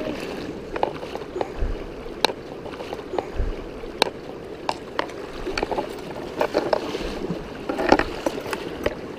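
River water rushing and splashing close by, a steady wash of moving water broken by many scattered sharp splashy clicks and a few dull low thumps.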